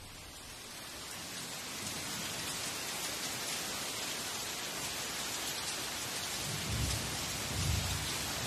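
Heavy tropical rainforest downpour: steady, dense rain that swells over the first couple of seconds and then holds even, with two brief low rumbles near the end.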